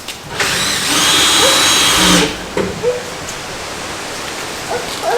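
Power drill running in one burst of about two seconds, starting about half a second in, with a steady high whine, as in driving a screw into wood during carpentry work.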